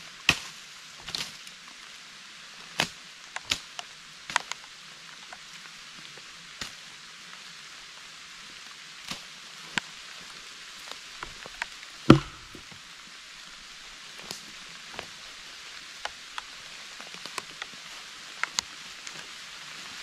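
Steady rain hiss with irregular sharp taps of heavy drops, and one heavier knock about twelve seconds in.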